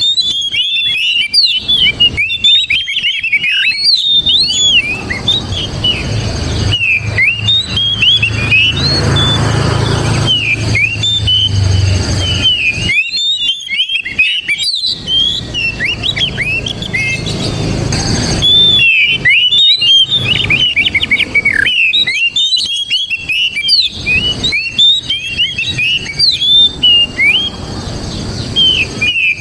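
Oriental magpie-robin (kacer) singing a loud, continuous run of quick varied whistles and chirps. A low rumble sits under the song for several seconds about a quarter of the way in.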